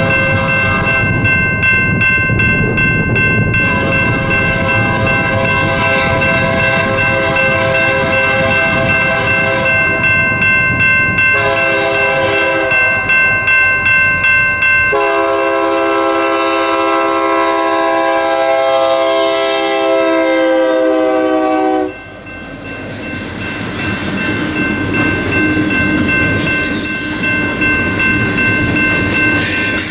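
Freight locomotive horn sounding several blasts on its approach to the crossing; the last long blast sags in pitch and cuts off about 22 seconds in as the locomotive reaches the crossing. A crossing bell rings steadily throughout. After the horn stops, the wheels of passing tank cars rise into a steady rolling clickety-clack.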